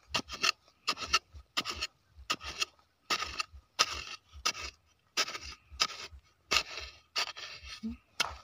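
Long-handled narrow digging blade jabbing and scraping into dry, sandy soil in quick repeated strokes, about two a second.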